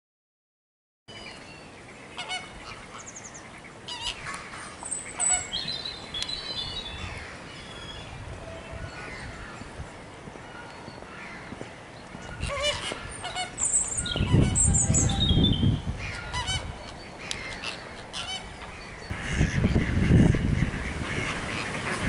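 A mix of waterfowl calls starting about a second in: goose-like honking with scattered higher chirps and whistles, louder in two stretches in the second half.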